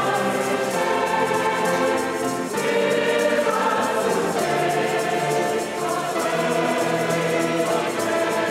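Choral music: a choir singing held chords, the harmony shifting every couple of seconds.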